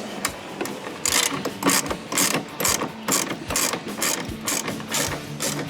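Ratchet clicking in quick runs of strokes as an M10 bolt is tightened down.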